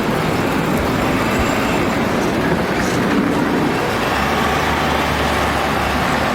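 Ambulance engine running as it pulls in, over steady road traffic noise.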